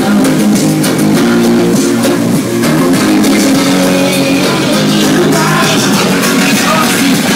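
Rock-style music with guitar.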